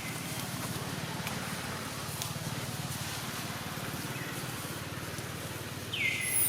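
A steady low hum of a running motor, with one short high chirp that falls in pitch near the end.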